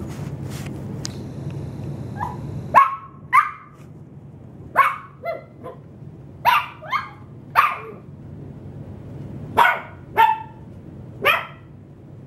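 Maltese puppy barking: about eleven short, sharp barks in irregular clusters, starting about three seconds in.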